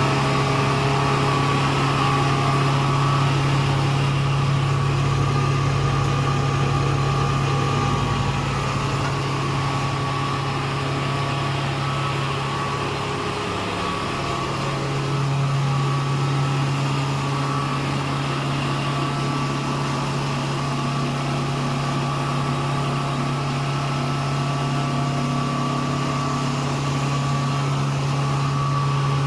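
Impact pulverizer (sawdust grinder) running steadily, a constant low hum with a steady higher whine over a rushing noise, briefly dipping about halfway through.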